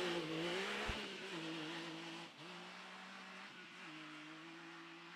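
A four-wheel-drive safari race car's engine running at steady revs with about three brief dips, fading as the car moves away.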